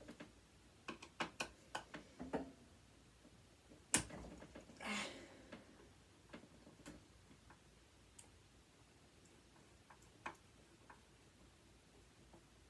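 Faint, irregular clicks and taps of a screwdriver working at screws and small metal parts. A sharper click comes about four seconds in, followed by a brief scrape.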